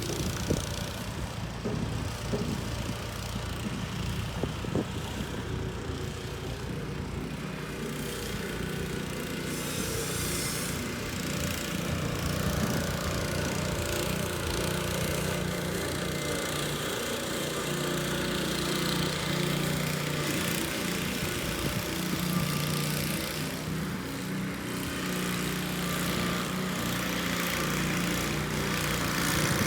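An engine running steadily, a low hum under a wash of noise, with no clear change in speed.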